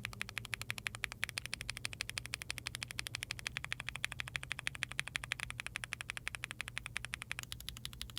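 Hyper tactile mechanical keyboard switches typed rapidly on an Ai03 Vega with a POM plate, a fast, even clatter of keystrokes at about ten a second. Near the end the clatter turns duller as a different switch is typed.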